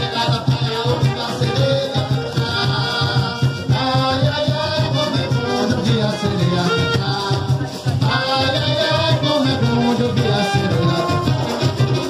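Live carimbó music: a steady pulse of hand drums under a continuous maraca rattle, with a melody line moving over the top.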